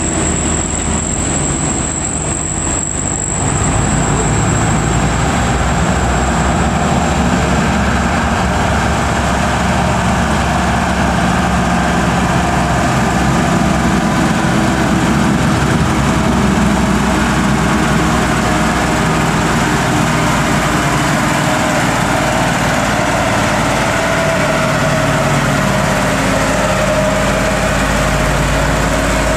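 Diesel engine of a heavily loaded Mitsubishi Fuso tandem-axle truck pulling hard up a steep hill, running steadily and continuously as it comes up and passes close by.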